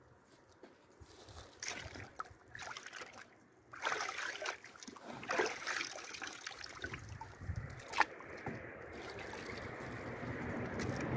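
Water splashing, trickling and sloshing in a plastic tub as amethyst plates are rinsed by gloved hands, with a single sharp knock about eight seconds in. A steady rushing noise builds over the last few seconds.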